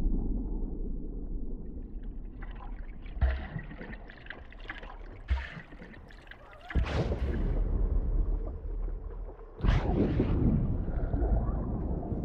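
Muffled underwater ambience with a deep steady rumble and gurgling, a couple of dull thumps, and two sudden surges of churning, splashing water about seven and ten seconds in.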